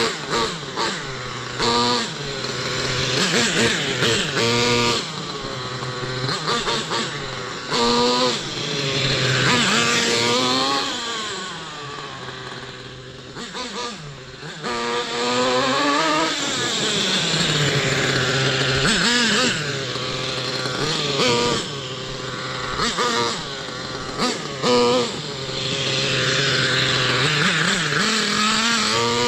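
Thunder Tiger EK4 S2 nitro RC monster truck's Pro 70BX glow engine revving up and easing off over and over as the truck is driven, its pitch rising and falling with each blip of throttle.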